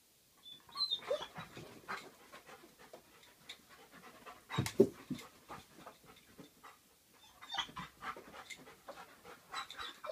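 A dog panting in short, irregular spells, with a louder sound a little under five seconds in.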